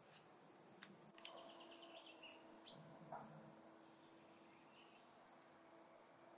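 Faint forest ambience: crickets chirring steadily at a high pitch. A short run of bird chirps sounds about a second or two in, along with a couple of brief clicks.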